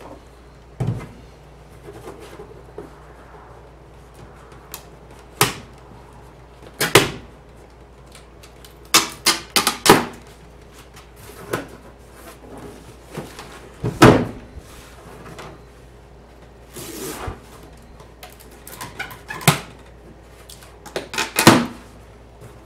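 Cardboard shipping box being handled and opened: irregular sharp knocks and thumps, some several in quick succession, with a short scraping rustle partway through.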